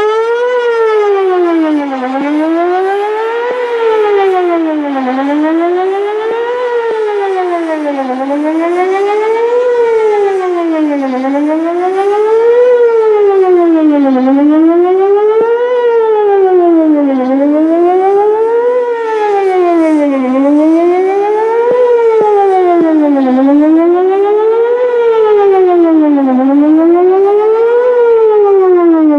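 Whelen WPS-4008 electronic outdoor warning siren sounding a fast wail: one loud tone sweeping smoothly up and down, a full rise and fall about every one and a half seconds, during a siren test.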